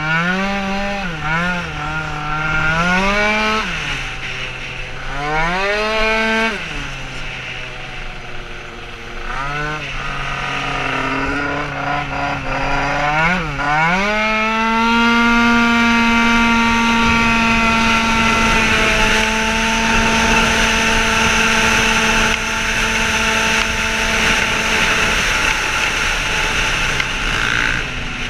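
Race-tuned scooter engine on track, its revs rising and falling several times through the corners, then climbing at about halfway to a steady high pitch held on open throttle for the rest.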